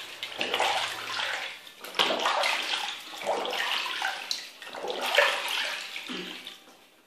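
Bathwater splashing and sloshing in a plastic baby bathtub as an adult's hand washes a baby, in irregular swells with small splashy ticks, fading near the end.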